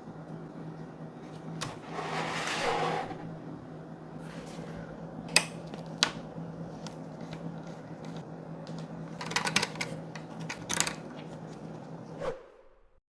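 Unboxing handling sounds: a rustling slide of packaging, then a few sharp clicks and short rattles as parts and box are handled, over a steady low hum. The sound fades out near the end.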